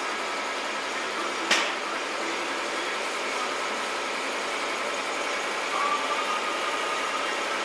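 Steady hum of a running machine, with one sharp click about a second and a half in.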